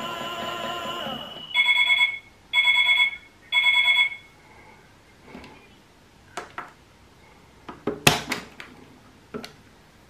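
Toy Klein Miele Softtronic washing machine signalling the end of its wash with three loud beeps, each about half a second long. Then come several clicks and a sharp clunk about eight seconds in as its door latch is released and the door is opened.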